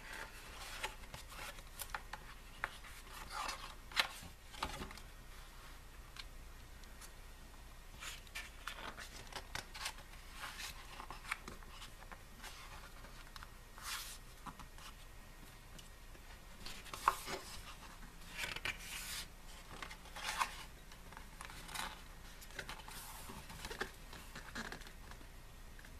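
Glossy pages of an album photobook being turned and handled: scattered soft paper swishes and rustles, with the odd light tap.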